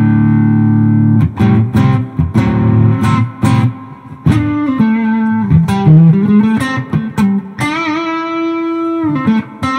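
Overdriven electric Telecaster with a rich overdrive, played through a compressor, Mooer Hustle Drive and Xotic EP Booster into a Fender Deluxe Reverb amp. A chord rings for about a second, then a lead line with string bends, ending on a long sustained note with vibrato.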